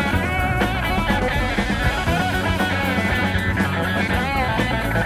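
A gospel band's rock song in a short instrumental stretch without singing: guitar over bass and drum kit.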